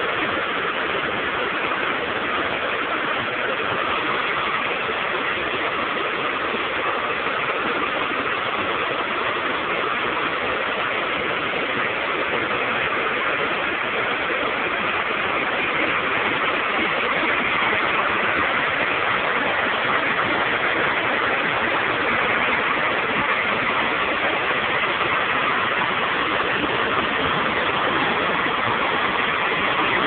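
Waterfall: water pouring down stone steps in a steady, loud rushing that grows slightly louder about halfway through.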